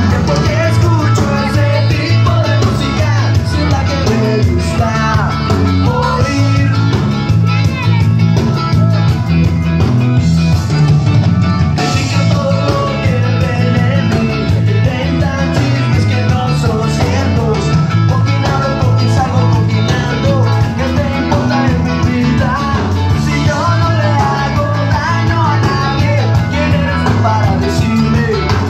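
Loud rock and roll music with singing and guitar over a steady beat, played through a sonidero sound system.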